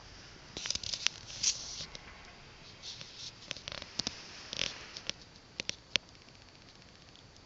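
Border collie snoring in her sleep: two noisy, crackly breaths about three seconds apart, then a few sharp clicks.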